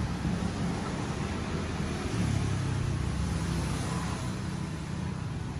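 Steady low rumble of road traffic, swelling as a vehicle passes about two seconds in, then easing off near the end.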